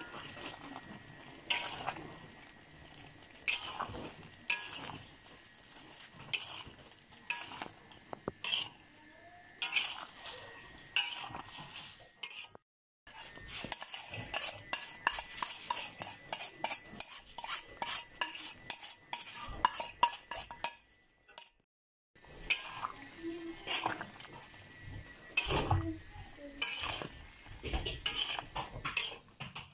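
A spatula scraping and knocking against a wok as sliced banana stem and chicken in coconut milk are stirred, with a steady sizzle underneath and a spoon clinking as seasoning is scooped in. The sound cuts out briefly twice.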